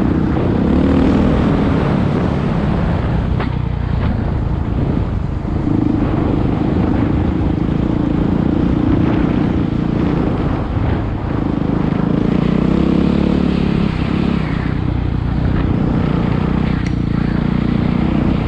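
Enduro dirt bike engine running hard along a dirt track, its pitch rising and falling as the throttle is opened and closed.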